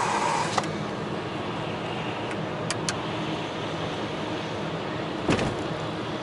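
Car cabin noise while driving: steady engine and road rumble, with a couple of light clicks near the middle and a louder knock about five seconds in.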